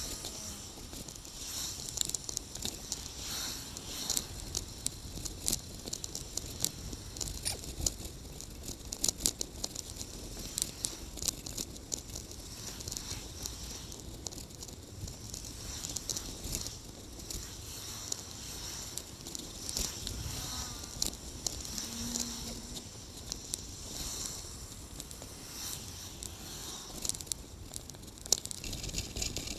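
Bicycle ride heard through a bike-mounted camera: crackling, rattling road noise full of small clicks, with a low rumble underneath.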